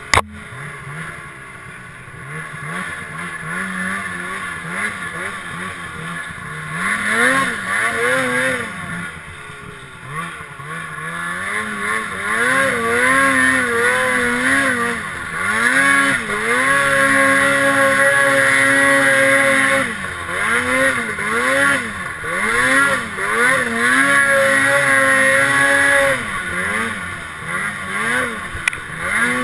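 Snowmobile engine under load climbing through snow, revving up and down again and again, its pitch rising and falling every second or so, with a few steadier held stretches. It runs quieter for the first several seconds, then louder. A single sharp knock sounds right at the start.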